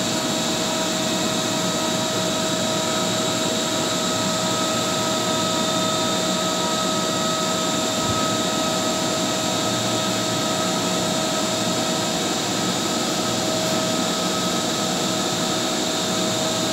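Steady drone of running machinery: an even hiss with several constant whining tones on top, unchanging throughout.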